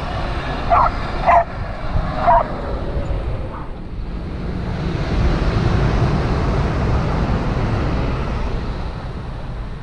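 A dog giving four short, high yips in the first few seconds over a low rumble, then the rushing noise of a passing train swelling and fading away.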